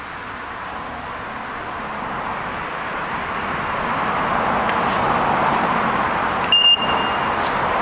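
A vehicle approaching, its steady running noise growing gradually louder, with a short high beep about six and a half seconds in.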